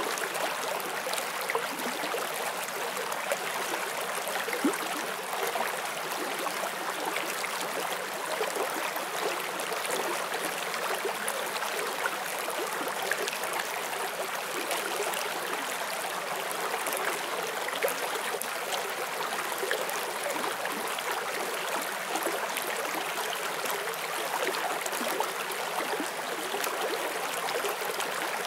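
Forest stream flowing over rocks: a steady rush of water with small splashes and gurgles.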